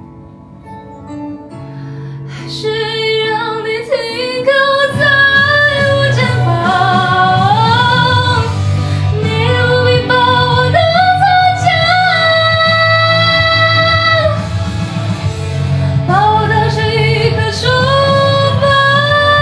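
A woman singing a Chinese pop ballad over a backing track with guitar. It starts softly, and the voice comes in about two seconds in, holding long notes that slide between pitches.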